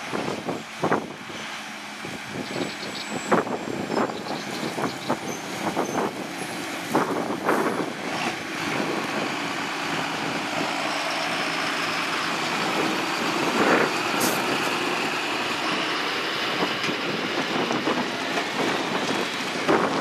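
Tractor hauling a sugarcane haulout bin drives past at close range, its diesel engine running steadily, with a cane harvester working behind it. Irregular sharp knocks in the first several seconds.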